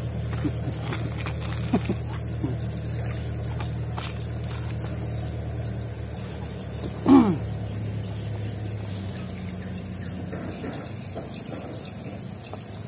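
Steady high-pitched drone of insects in riverside forest over a low hum. About seven seconds in, one short call falling in pitch is the loudest sound, with a few small clicks scattered through.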